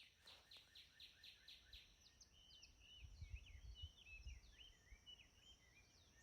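Faint outdoor recording of birds calling: a run of repeated high falling chirps, about three or four a second, gives way after about two seconds to varied warbling calls, over a low rumble like wind.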